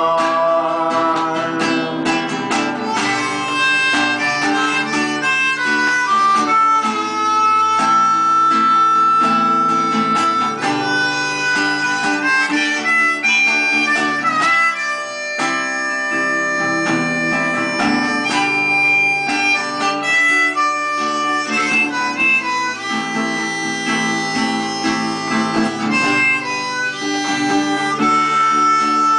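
Harmonica playing a melody of held notes over a strummed acoustic guitar.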